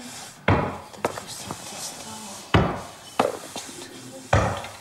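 A wooden drawer and its contents knocking and clattering as someone rummages through it: four sharp knocks, the last near the end.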